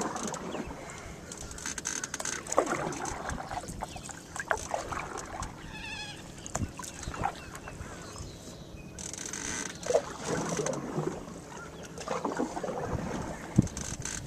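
Paddle strokes in the water, with irregular knocks of the paddle against the side of a small boat. A waterbird calls briefly about six seconds in.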